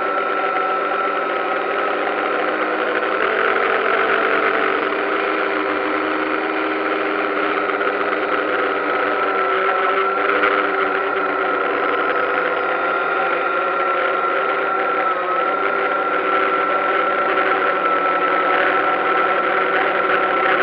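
DJI Phantom quadcopter's motors and propellers running in flight, a steady high whine with several steady tones beneath it that shift slightly in pitch now and then. It is heard from the drone's own onboard camera.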